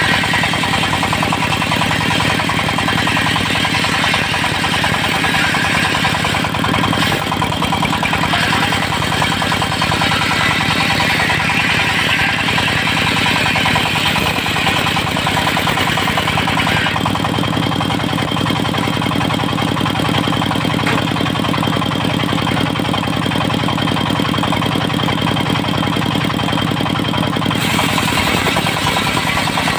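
Dongfeng diesel engine running steadily and driving a circular sawmill blade. A higher whine of the blade cutting teak is heard over the engine for the first half, stops about halfway through, and comes back near the end.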